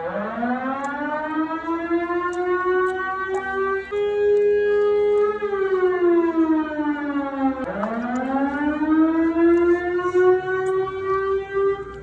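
Motor-driven siren sounding to mark iftar, the end of the day's Ramadan fast at sunset. It wails: its pitch winds up, holds, sinks, then winds up again about eight seconds in and holds.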